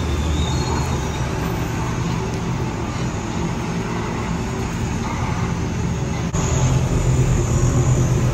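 Lifted Ford Super Duty dually pickup's engine running as the truck rolls slowly on big off-road tyres, with a steady low rumble that echoes in a concrete parking garage; it gets louder about six seconds in.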